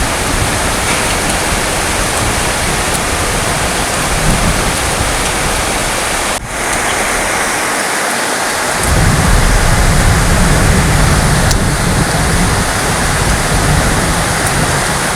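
Heavy rain pouring steadily, with a deep rumble of thunder rolling from about nine seconds in until near the end. A brief dropout in the rain comes a little past six seconds in.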